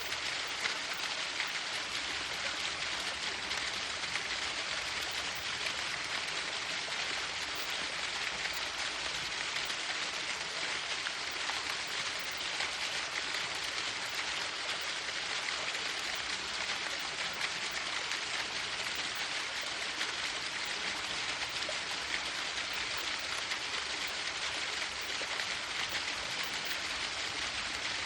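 Waterfall: water falling and splashing in a steady, even hiss.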